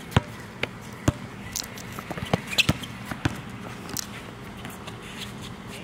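A basketball bouncing on an outdoor hard court as it is dribbled. A few sharp bounces come about half a second apart at first, then irregular ones up to about four seconds in, after which it goes quiet.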